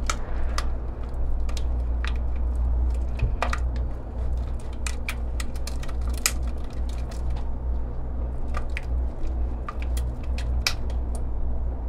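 Wire whisk stirring thick Alfredo cheese sauce in a stainless steel pot: irregular light clicks and scrapes of the whisk against the pot's sides and bottom, over a steady low hum.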